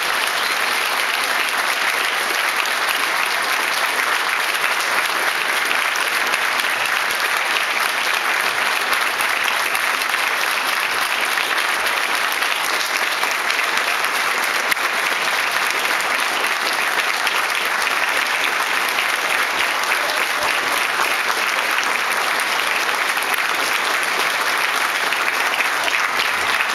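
Audience applauding: a long, steady round of clapping from a large hall crowd that neither swells nor fades.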